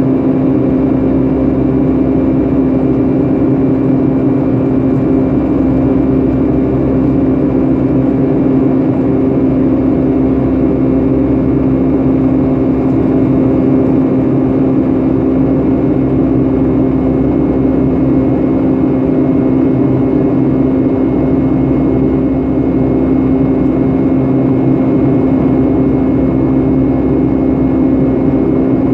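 Steady jet engine drone and airflow roar inside the cabin of a Boeing 757-300 in flight, with a constant low hum over the rushing noise.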